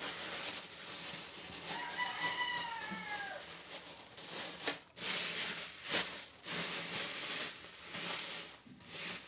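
A rooster crows once, a single call of about a second and a half that falls in pitch at the end, over a steady hiss. A few sharp clicks follow near the middle.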